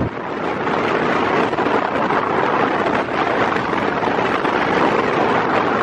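Steady rush of wind and road noise from a moving car driving along a highway, heard from inside the car.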